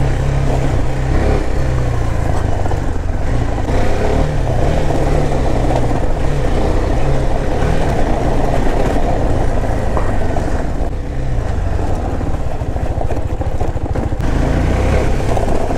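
KTM Duke 390's single-cylinder engine running steadily as the motorcycle is ridden slowly off-road.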